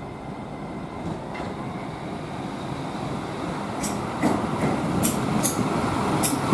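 A train moving through the station and getting louder as it nears, a steady rumble of its running gear. From about four seconds in its wheels click over the track in quick pairs.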